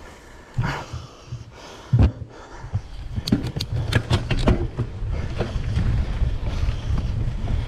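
Giant Trance 3 full-suspension mountain bike rolling over a dirt singletrack, with wind rumble on the handlebar-mounted GoPro's microphone that gets louder from about two and a half seconds in. A knock about two seconds in, then a quick run of sharp clicks and rattles from the bike over bumps.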